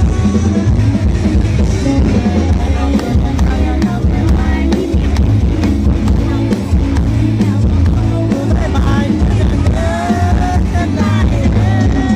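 Loud live band music: drum kit and bass keeping a steady beat, with guitar.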